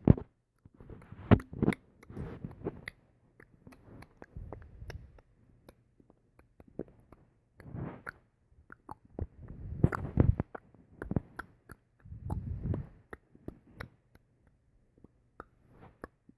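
Irregular clicking noises: scattered sharp clicks at an uneven pace, with short soft noisy patches in between.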